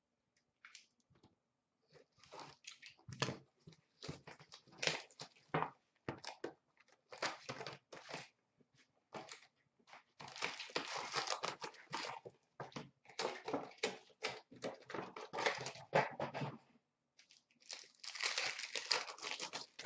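Hockey trading-card packs being torn open and their wrappers crinkled, with cards and packaging handled, in irregular bursts starting about two seconds in.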